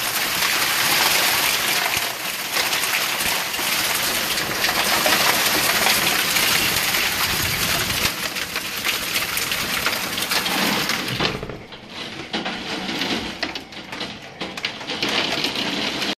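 Heavy hail and rain pelting down in a thunderstorm, a loud, dense wash of countless hits. About eleven seconds in, as the balcony door is shut, it turns quieter and muffled, with single hailstones still clicking.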